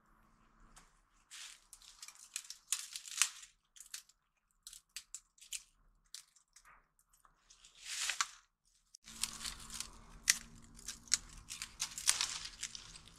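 Dry twigs and branches crackling and snapping in irregular bursts as they are broken off and handled. Sparse at first, then denser after about nine seconds.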